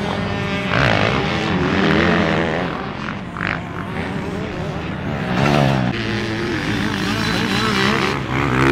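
Motocross dirt bike engines revving up and down on the track, more than one bike at once, pitch climbing and dropping with the throttle.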